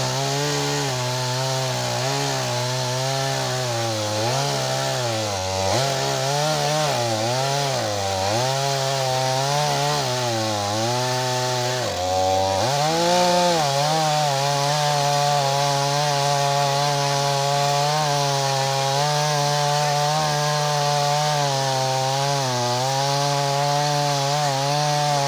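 Small two-stroke gasoline chainsaw running, its engine revved up and down over and over, falling and rising in pitch, then held at a steady high speed for the second half.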